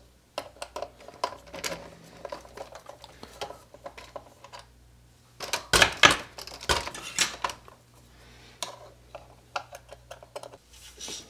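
Small clicks and light clatter of a precision screwdriver working screws out of a plastic RC rock crawler chassis, the truck handled on a wooden workbench. A louder cluster of knocks comes about six seconds in as the truck is turned around on the bench.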